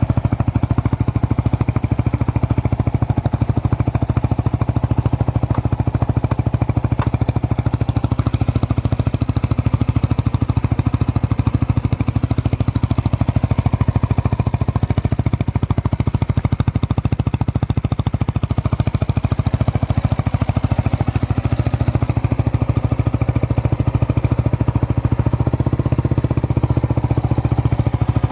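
Suzuki Grasstracker's air-cooled single-cylinder engine idling steadily through a SuperTrapp 4-inch full exhaust, with an even, rapid pulse. It runs without any abnormal noise.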